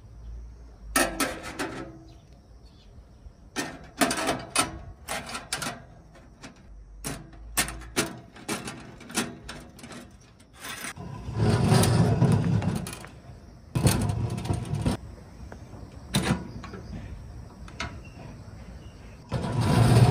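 Clinks, taps and knocks of hand-assembling a stainless steel camp stove: screws, small tools and thin steel parts being set down and worked with a screwdriver. A longer, louder scraping of steel handled on the table comes a little after ten seconds and again near the end.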